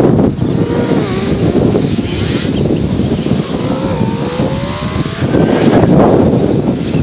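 Cars and SUVs driving through a road intersection, with one engine climbing in pitch as it accelerates, over heavy wind rumble on the microphone.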